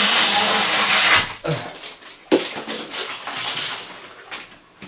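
Plastic stretch wrap on a cardboard appliance box rustling and crinkling as it is handled, after a steady rushing noise in the first second, with a sharp click about two seconds in.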